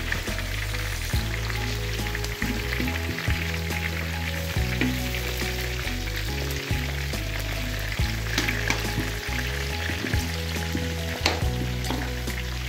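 Pork pieces sizzling in bubbling hot fat in a metal wok as the fat renders out into cooking oil, with clicks and scrapes from a metal slotted ladle stirring against the pan. Steady low tones run underneath throughout.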